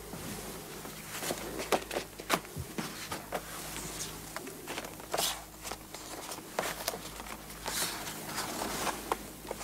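Paper and photographs being handled on a desk: a folder opened and a stack of photos shuffled and spread out, making irregular rustles with scattered light taps.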